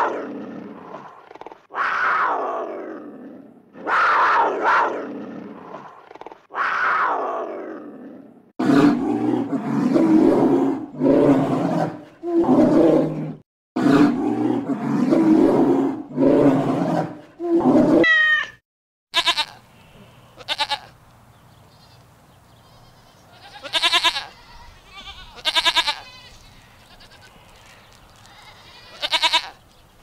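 A string of animal calls. First come four falling calls about two seconds apart, then a run of loud, deep, short calls about a second each. Near the end there are a few quieter, higher calls.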